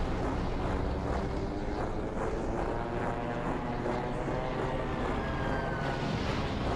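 Propeller aircraft engine droning over a steady rush of noise, with a faint whine falling in pitch in the second half.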